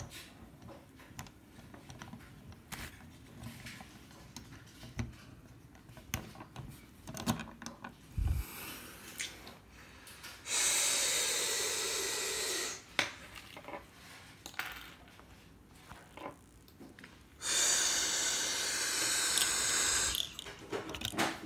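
Plastic Lego Hero Factory parts being handled and fitted by hand: scattered faint clicks and knocks. Two long, steady loud hisses, each lasting two to three seconds, begin about ten seconds in and about seventeen seconds in.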